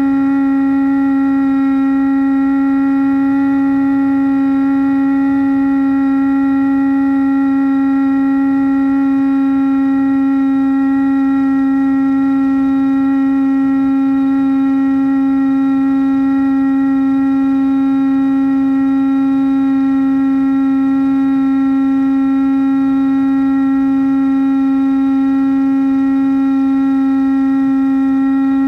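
Brushless electric motor and propeller of a Bixler model plane running at steady cruise throttle. It makes a loud, unchanging drone with a row of overtones.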